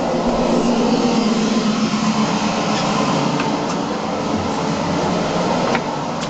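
Steady mechanical hum and rumble of machinery inside a submarine's compartments, with a couple of faint clicks about three and a half and six seconds in.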